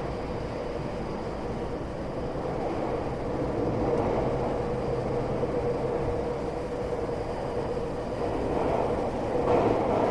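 Tokyo Metro 8000-series electric train running at steady speed, heard from inside the passenger car: a steady hum and rail rumble that swells slightly a couple of times.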